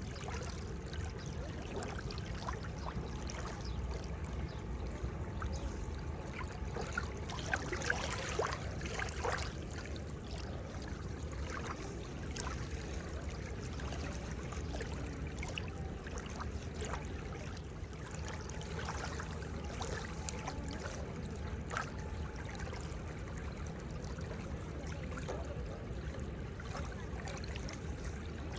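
Seawater washing and trickling at the shoreline: a steady rush of water broken by many small splashes, a little louder about eight seconds in.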